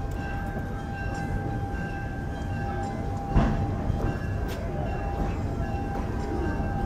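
Stationary red electric interurban car with a steady electrical whine over a low rumble, and a single knock about three and a half seconds in.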